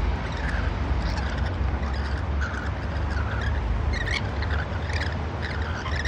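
Rainbow lorikeets giving short, high chattering chirps over and over, more often in the second half, over a steady low background rumble.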